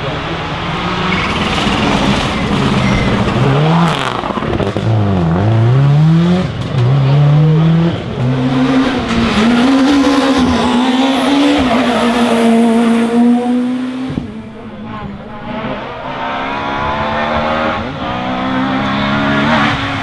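Rally cars driven flat out one after another, engines revving hard and sweeping up and down in pitch through gear changes. The engine sound dies down briefly about three-quarters of the way through, then picks up again with the next car.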